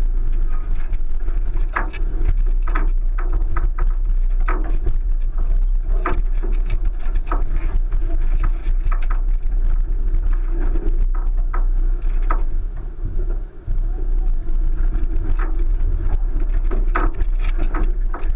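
1999 Subaru Forester's flat-four engine running steadily as the car crawls up a rock climb, heard from inside the cabin, with frequent sharp knocks and clunks from the body and suspension as it works over the rock.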